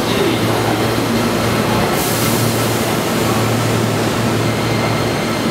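Keihan 10000 series electric train standing at a platform, its onboard equipment giving a steady hum. About two seconds in, a sudden hiss starts and slowly dies away.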